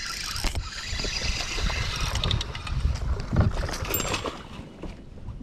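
Wind buffeting the microphone with water splashing as a hooked bass thrashes at the surface beside a kayak during the fight.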